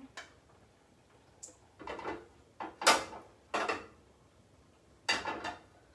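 Olive oil being poured from a bottle into a hot frying pan, with several short noisy bursts and knocks of bottle and pan handling, the loudest about three seconds in.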